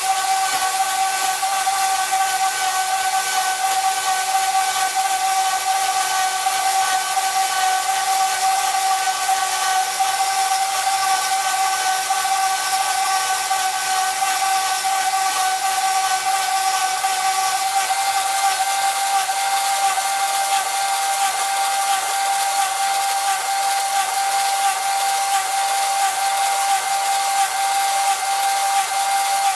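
Small homemade bandsaw running and sawing through an aluminium bar: a steady high whine from the motor and blade over a hiss of cutting, its tone shifting slightly about two-thirds of the way through.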